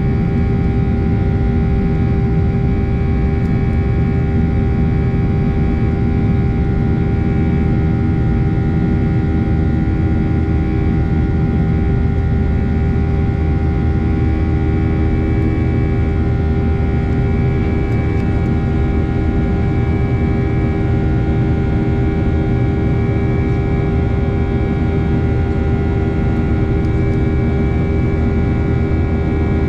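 Steady engine and airflow noise inside the cabin of a Boeing 737-800 climbing after takeoff, its CFM56-7B turbofans giving several steady droning tones over the rush.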